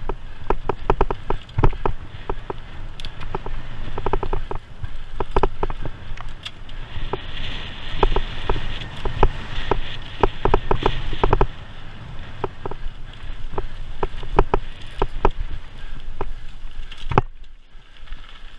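Onboard sound of a bicycle riding a bumpy dirt track: rattles and knocks as the bike and camera mount jolt over the ground, over a low wind rumble on the microphone. A hiss of tyres on loose ground rises in the middle.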